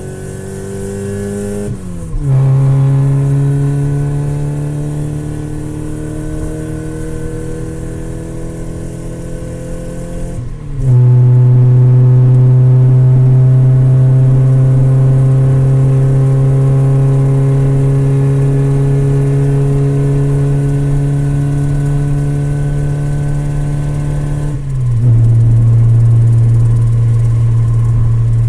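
Car engine accelerating through the gears: its pitch climbs slowly under load, then drops sharply at each upshift, about 2 s, 10 s and 25 s in, and gets louder after each shift.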